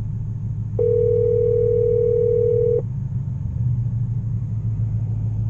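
Low steady rumble of a Mustang GT's 5.0 V8 running through a straight-piped exhaust, with the catalytic converters and mufflers deleted. About a second in, a loud steady electronic tone joins it; it holds one pitch for about two seconds and cuts off sharply.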